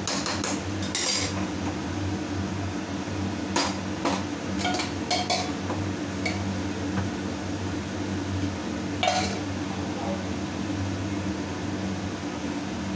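Steel ladle and utensils clinking and scraping against an aluminium pressure cooker and steel dishes: scattered metallic clinks, the loudest about nine seconds in, over a steady low hum.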